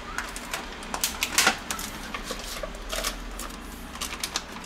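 Thin plastic packaging crackling and clicking as it is handled and tipped over a plastic chopper bowl, with bacon pieces dropping in. The clicks are irregular, several a second, with a few louder knocks about a second and a half in.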